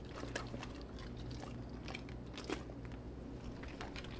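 Two dogs taking small pieces of string cheese from a hand and chewing them: faint, scattered snaps and clicks of jaws and teeth, one a little louder about two and a half seconds in.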